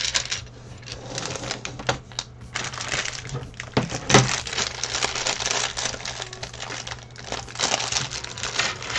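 Small plastic building bricks clicking and rattling against each other and a tray as they are sorted by hand, with one sharper knock about four seconds in.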